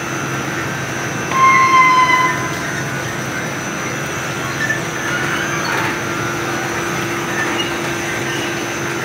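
Rotary trash rake screen running: a steady mechanical hum, with a short high squeal about a second and a half in that is the loudest moment, and a few fainter squeaks later.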